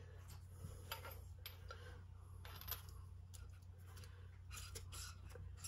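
Faint scattered metal clicks and taps as small motorcycle fork parts, a damper rod and its piston piece, are handled and fitted together by hand, over a steady low hum.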